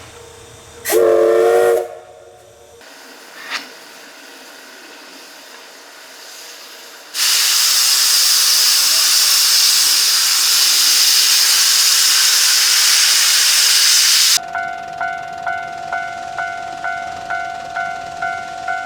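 A steam locomotive whistle gives one short blast about a second in, and some seconds later a loud steam hiss runs for about seven seconds before cutting off suddenly. A Japanese level-crossing alarm then rings steadily at about two strokes a second.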